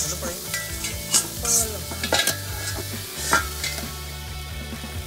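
Steaks sizzling on a charcoal grill, with metal tongs and domed steel lids clinking and clanking several times.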